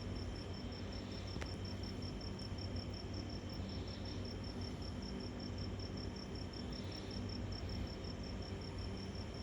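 A cricket chirping in a steady train of short high pulses at one pitch, about five a second, over a steady low hum.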